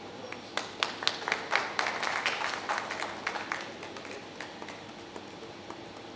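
Audience clapping: scattered claps starting about half a second in, swelling into a short burst of applause and fading out by about four seconds.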